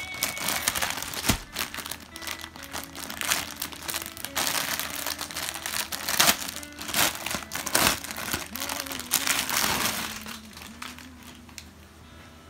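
Thin clear plastic polybag crinkling as hands open it and slide out a pair of folded jeans, in a run of irregular rustling bursts that dies down about ten seconds in.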